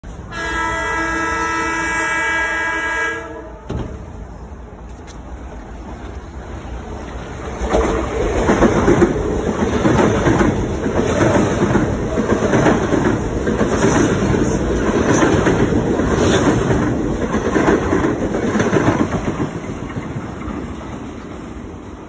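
A train horn blows once for about three seconds. An M7A electric multiple-unit train then passes close by, its wheels clicking rhythmically over the rail joints, and fades away near the end.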